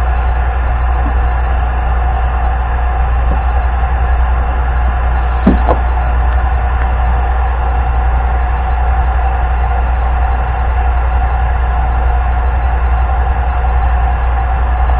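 A steady, loud machine hum with a whirring tone runs without change, with a single light knock about five and a half seconds in.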